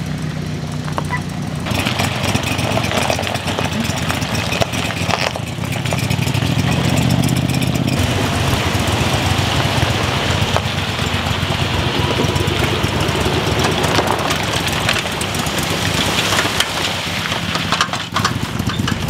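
An engine running steadily with a low hum, growing louder and rougher about two seconds in.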